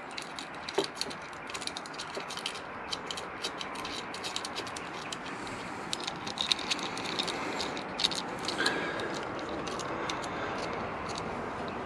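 Light clicks and ticks of small metal parts being handled as clamp screws are threaded in by hand on a motorcycle's brake master cylinder clamp and heated-grip controller bracket. The clicks come thick and fast for the first few seconds, then thin out over a faint steady hiss.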